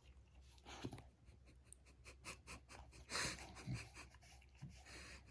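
Faint breathing and panting of a Welsh corgi puppy, with a few short breathy huffs, the clearest a little past three seconds in.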